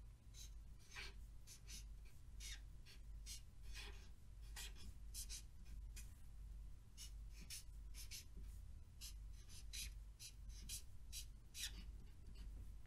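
Pentel marker tip drawing on paper: a quiet run of short, irregular strokes, one after another, as capital letters are lettered. A faint steady low hum lies underneath.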